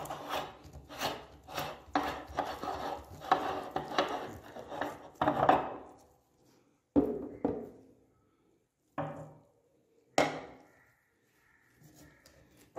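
Hand-cranked meat grinder grinding carrot: a dense run of scraping, crunching strokes as the auger forces it through the plate, stopping about six seconds in. After that come a few separate knocks a second or two apart as the grinder's metal parts, such as the ring nut, are taken off.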